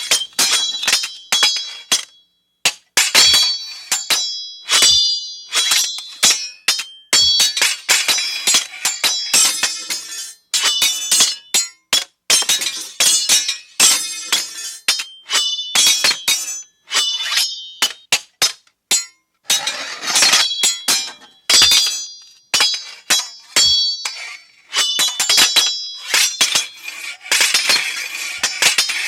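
Steel sword blades clashing again and again in quick, irregular succession, each sharp metallic strike ringing high before the next.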